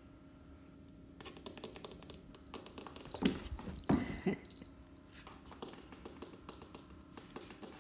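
Domestic tabby cat giving three short meows about halfway through, over scattered light clicks and taps.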